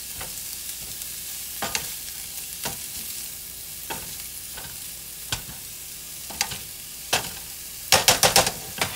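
Chopped lobster, yellow bell peppers and scallions sizzling as they sauté in a frying pan, with scattered taps from the tongs stirring them. A quick run of louder taps comes near the end.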